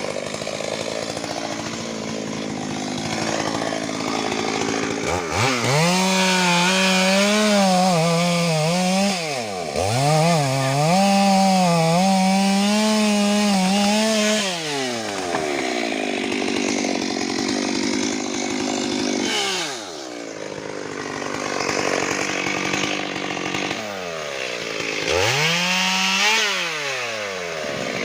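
Stihl MS 382 two-stroke chainsaw revving at full throttle and cutting wood. Its engine note sags and recovers under load, drops back to a lower, rougher running several times, then revs up again twice near the end.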